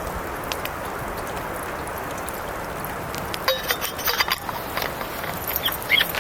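Wood fire burning with a steady hiss and scattered crackles and snaps, growing busier with a cluster of sharp clicks from about three and a half seconds in.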